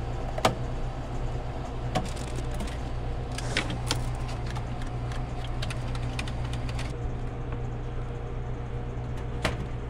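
Steady low hum of a running ice machine, with scattered clicks and knocks of plastic parts being fitted back into it by hand. The sharpest knock comes about half a second in, and another comes near the end.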